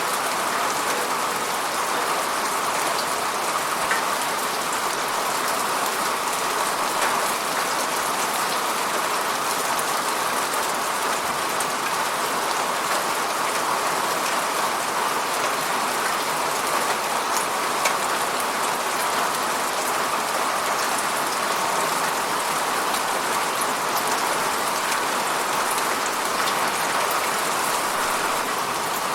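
Steady rain hitting a window: an even hiss of falling rain with a few sharper single drop ticks standing out now and then.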